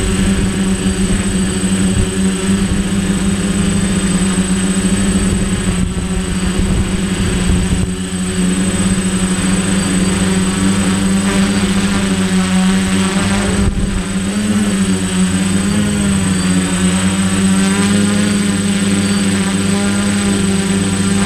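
DJI Flame Wheel 450 quadcopter's electric motors and propellers buzzing steadily in flight, the hum wavering in pitch about two-thirds of the way through. Wind buffets the microphone underneath.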